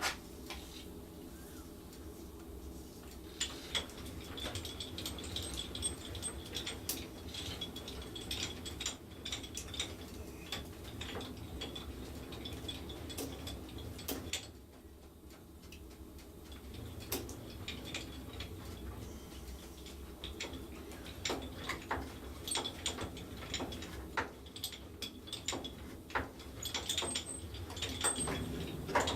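Metal lathe running under power: a steady motor hum with a high gear whine and rattling, clicking gears. The whine drops out about halfway through and returns near the end.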